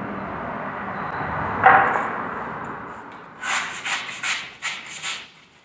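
A large kitchen knife cutting into the husk of a green coconut on a plastic cutting board: one sharp knock on the board about a second and a half in, then a run of short scraping strokes, two to three a second, as the blade shaves the husk.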